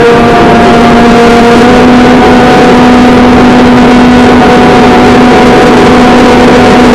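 Brushless electric motor and propeller of a ZOHD Nano Talon FPV plane running at a steady throttle, a loud, even buzzing whine heavy with wind noise on the onboard camera's microphone; its pitch steps up slightly about a second and a half in.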